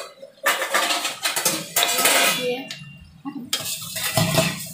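A metal spoon scraping the bottom and sides of an iron kadhai as thick almond halwa is stirred and turned, in long rasping strokes with a short break about three seconds in. The halwa has been roasted until it releases its ghee, at the last stage of cooking.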